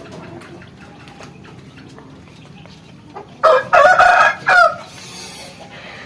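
A rooster crows once, about three and a half seconds in: a loud call of a little over a second, broken into parts and ending on a short falling note.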